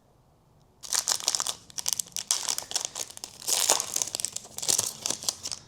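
Plastic packaging crinkling in uneven spurts as trading cards are handled, starting about a second in.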